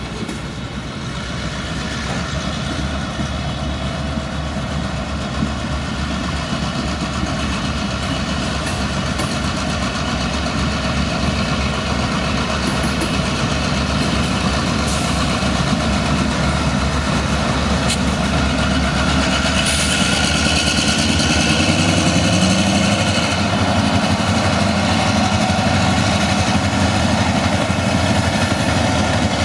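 Slow freight train passing: covered hopper cars rolling on the rails, then two Aberdeen and Rockfish Railroad diesel locomotives whose engines grow louder as they draw near.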